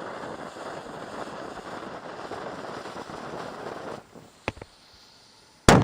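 A steady rushing noise stops about four seconds in; a sharp click follows, then a single very loud blast from a black powder cannon firing near the end, echoing afterwards.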